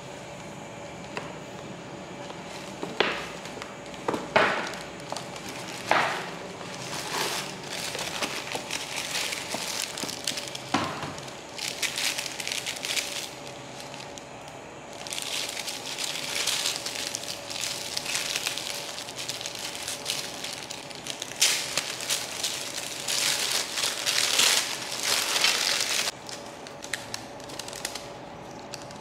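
Paper gift bag and tissue paper wrapping rustling and crinkling as a small package is taken out and unwrapped by hand: a few separate sharp crackles, then long stretches of dense crinkling.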